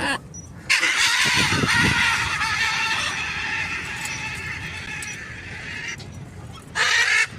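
Macaw screeching: one long screech of about five seconds that slowly fades, then a short second screech near the end.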